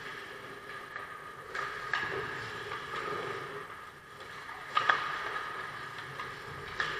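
Ice hockey play on an indoor rink: skate blades scraping across the ice and sharp clacks of sticks and puck, the loudest about five seconds in and another near the end, over a steady hum.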